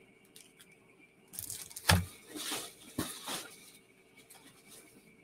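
Rustling and crinkling of snack packaging being handled, with a soft thump about two seconds in and a sharp knock about a second later.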